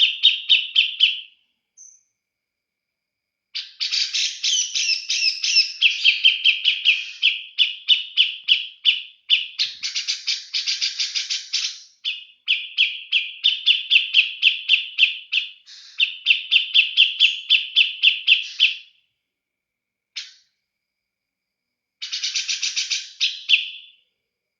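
Cucak jenggot (brown-cheeked bulbul) singing: long runs of rapid repeated chattering notes, several phrases of a few seconds each broken by short pauses, with a brief final burst near the end.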